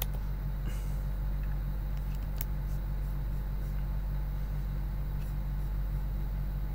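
Steady low electrical hum of the recording setup, with two faint clicks about a second in and near the middle.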